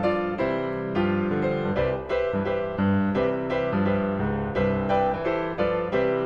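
Background piano music, notes struck at an even pace of about two a second.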